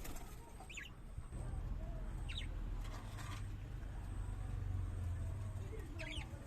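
A bird gives three short, high chirps spread over several seconds, over a steady low rumble.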